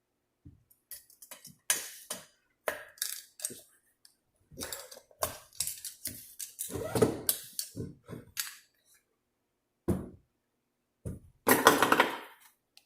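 Metal parts of a 46RE transmission's overdrive unit clinking, scraping and clattering in irregular short knocks as they are handled and fitted together, with the loudest clatter about a second before the end.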